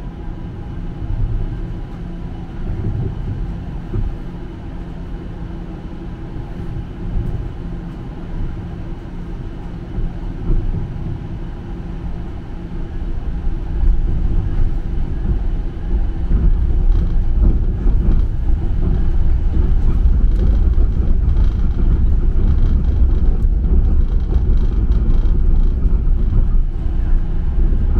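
Toronto streetcar heard from inside the car while it travels: a steady low rumble of wheels on rail and the drive, with a faint hum. It grows louder about halfway through and stays louder, with light clicks and rattles.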